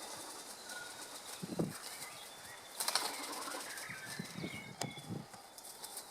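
Wings flapping as a tui harasses a kaka parrot in the tree, in several short flurries, with a couple of sharp snaps and a few faint bird calls.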